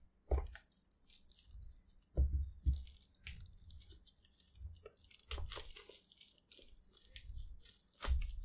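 Clear plastic shrink-wrap being peeled and torn off a cardboard phone box, crinkling and crackling, with a few low thuds as the box is handled.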